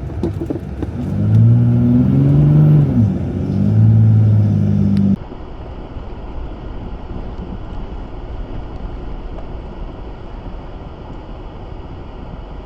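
Jeep Gladiator's 3.0 L EcoDiesel V6 revving up and down several times. About five seconds in the sound cuts abruptly to a quieter, steady low rumble.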